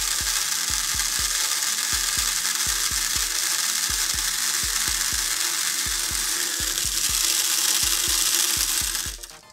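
Indicating silica gel desiccant beads pouring steadily into a clear plastic tub: a dense, even hiss of beads hitting plastic and each other that cuts off suddenly near the end. Background music with a steady low beat plays underneath.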